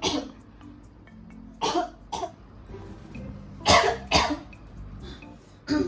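A person coughing in about six short bursts, mostly in pairs, over soft background music: a chesty cough with phlegm that is getting worse.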